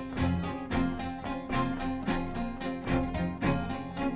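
Acoustic folk band playing an instrumental passage without vocals: acoustic guitars strummed in a steady rhythm over held notes.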